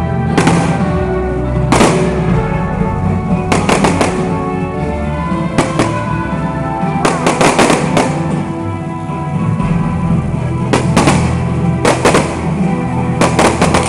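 Fireworks going off in clusters of sharp bangs every second or two, over loud music with steady held notes.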